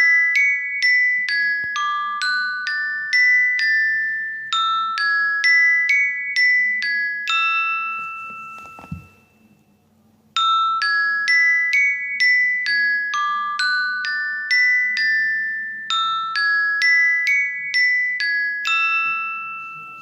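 Twinkle chime sound effect: a quick run of bright, ringing glockenspiel-type bell notes that fades out about eight seconds in, then the same phrase played again. A soft thump falls in the gap between the two.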